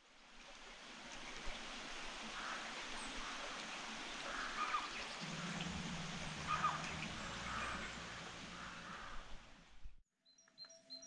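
Countryside ambience: a steady rushing hiss with small birds chirping several times, and a low hum joining about halfway. It cuts off suddenly near the end.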